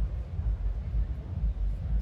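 Dance music from inside a nightclub heard from outside the building: only the bass and kick drum come through, a steady thump about two beats a second.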